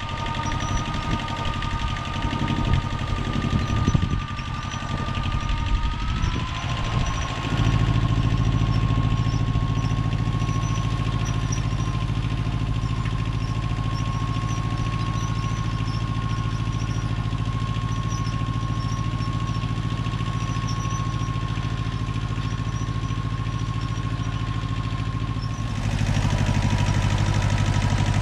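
Zen-Noh ZB6000 compact tractor engine running, with a steady whine over it. Irregular knocks and clunks come through for the first several seconds, then the engine settles to a steady note. It steps up louder near the end.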